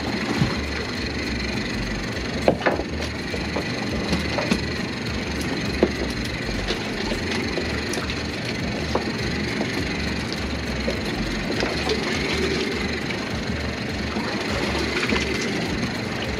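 Outboard boat engine idling steadily with a low, pulsing rumble, and a few sharp knocks in the first six seconds.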